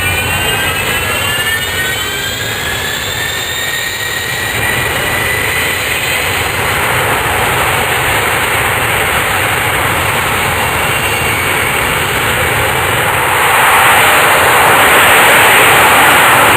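Jet aircraft engine noise: a steady rush with a faint rising whine over the first few seconds, growing louder about 14 seconds in.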